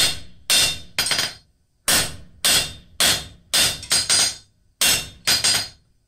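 Hand forging hammer striking a hot half-inch square bar on an anvil, about a dozen blows at a steady pace of roughly two a second, each ringing briefly, with a short pause about a second and a half in. The blows straighten the bar after the first set-down of a tong jaw.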